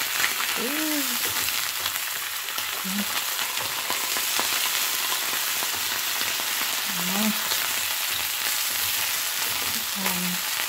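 Ham slices and a hotdog frying in oil in a nonstick pan: a steady sizzle with fine crackling spatter, while a wooden spatula pushes the meat around.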